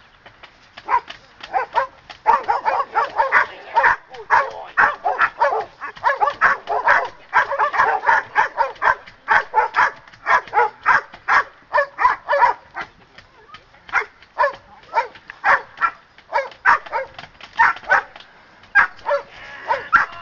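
Standard poodle barking aggressively in rapid runs of barks as it is agitated in attack training, several barks a second through the middle, more spaced out towards the end.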